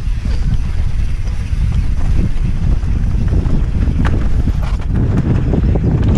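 Wind buffeting the microphone of a helmet-mounted camera on a mountain bike riding down a dirt trail, mixed with the rumble of the tyres over the ground. A few sharp rattles from the bike over bumps about four and five seconds in.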